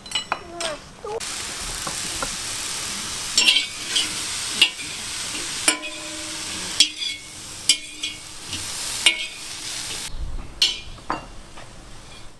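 Sliced smoked sausage sizzling as it fries in a wide kazan, stirred with a spatula that scrapes and clicks against the pan. The sizzle sets in about a second in and falls away near the end.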